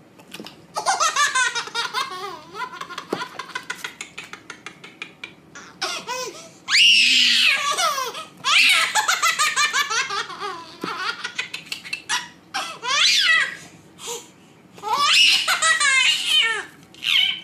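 A young child laughing hard in repeated fits of quick, high-pitched giggles, broken by longer squealing laughs.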